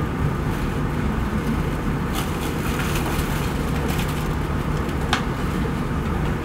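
Steady low rumble and hiss of room noise in a lecture hall, with a few faint clicks.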